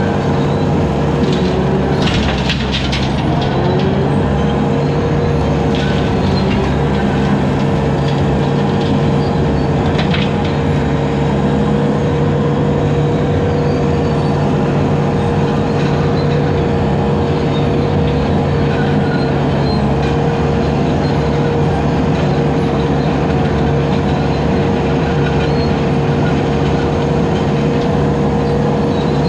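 Bobcat 873 skid steer's diesel engine running steadily under load while driving a low-flow hydraulic 72-inch brush cutter through brush, with a steady whine over the engine. Short clusters of clicks come about two seconds in and again near ten seconds as the cutter hits brush.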